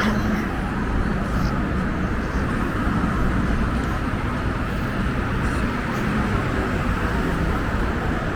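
Steady city street traffic: a continuous wash of passing vehicles.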